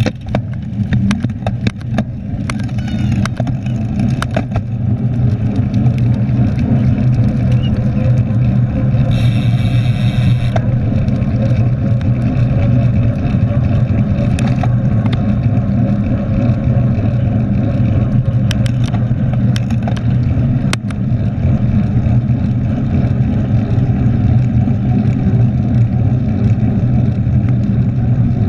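Steady low rumble of wind and tyre noise on a handlebar-mounted GoPro as a mountain bike rides along tarmac in a pack of riders. Scattered sharp clicks and knocks come from the bike, with a short hissing stretch about ten seconds in.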